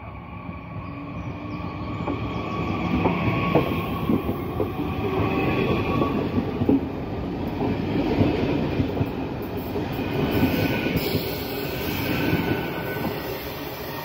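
Stadler KISS electric double-deck multiple unit pulling out and running past: a dense rumble of wheels on rail with a few sharp clicks, under high whining tones from its drive and wheels. It swells over the first couple of seconds and eases slightly near the end.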